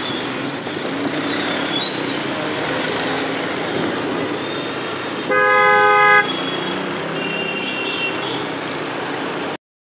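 City street traffic heard from a moving scooter: a steady wash of road noise with short, light horn beeps from other vehicles, and one loud vehicle horn blast about five seconds in, held for about a second.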